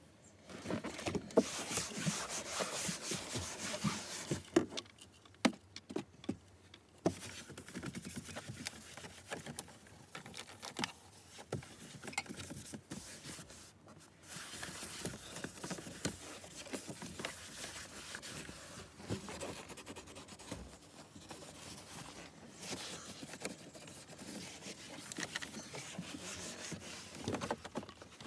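A duster cloth rubbing and swishing over a car's steering wheel and dashboard plastic, with scattered clicks and knocks of handling.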